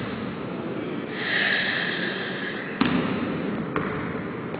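A basketball bouncing on a hardwood gym court during a pickup game, with a sharp bounce almost three seconds in and another near four, over the hall's general noise. A high, hissing sound runs for about a second and a half before the bounces.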